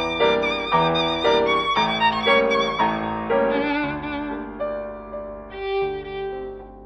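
Background music: a violin playing a melody with vibrato, the notes coming in quick succession at first, then slower and softer from about four seconds in.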